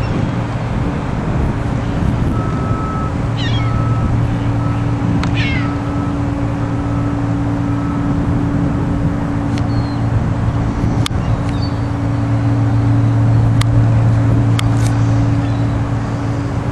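Steady low drone of the passing lake freighter Algoway's engine, over wind noise. Two short falling bird calls come a few seconds in, and a faint repeating beep sounds in the first half.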